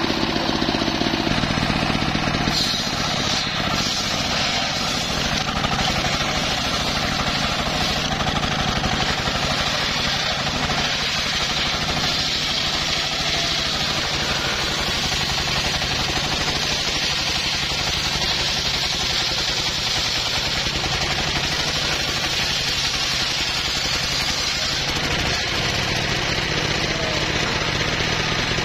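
Engine-driven circular sawmill cutting lengthwise through a log: the engine runs steadily under load, and from about two and a half seconds in the big blade's hiss through the wood runs over it.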